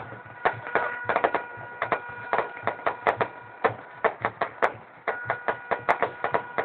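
Fireworks going off in a rapid, irregular string of sharp bangs and crackles, several a second. A steady held tone sounds underneath for a while near the start and again from about the middle.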